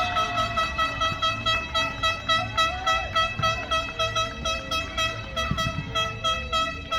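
A steady, horn-like pitched tone sounding continuously and pulsing rapidly, about four pulses a second, then stopping shortly after the end.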